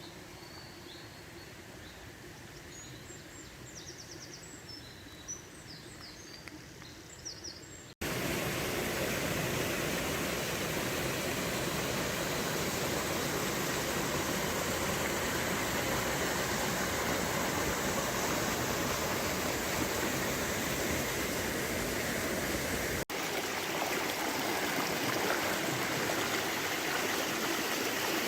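Birds chirping over a quiet background, then, after a sudden cut about eight seconds in, the loud steady noise of a river running over shallows; a brief break about twenty-three seconds in, and the water goes on.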